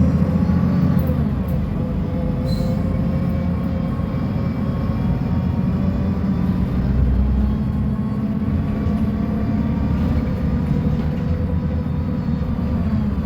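Mercedes-Benz O500U city bus diesel engine running under way, a heavy low rumble with a steady engine note whose pitch dips slightly about a second in and starts to rise near the end.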